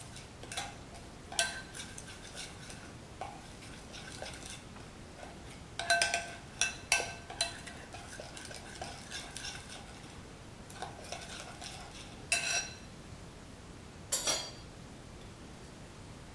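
Metal spoon stirring a wet spice paste in a glass bowl, with irregular clinks and scrapes as the spoon strikes the glass, each clink ringing briefly. The loudest clinks come in a cluster about six seconds in and twice more near the end.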